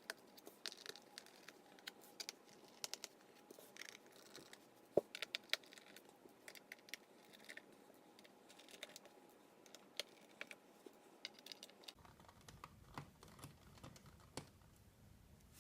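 Faint, irregular small clicks and scrapes of a precision screwdriver working out the bottom case screws of a 2010 MacBook Pro.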